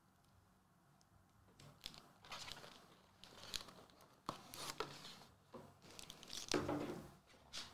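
Foil wrappers of Magic: The Gathering collector booster packs crinkling and crackling in irregular bursts as the packs are handled and set down on the table. The sound starts about a second and a half in and ends just before the end, with a few sharp clicks and the loudest rustle near the end.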